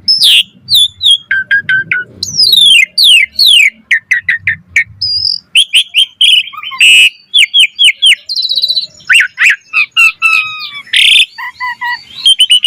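Asian pied starling (jalak suren) singing a fast, varied song of whistled glides, sharp chirps and rising and falling notes, with a quick trill a little past the middle.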